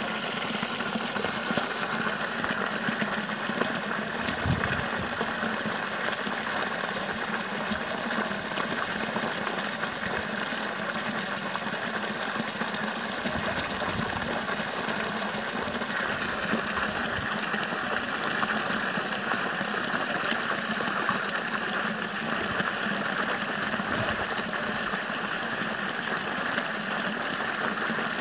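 Water gushing up out of a borewell pipe and splashing onto the ground, with a steady machine hum underneath.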